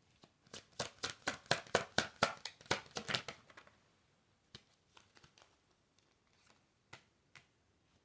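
Tarot cards being shuffled by hand: a quick run of card slaps, about five a second, for about three seconds, then a few single taps as cards are handled and laid down.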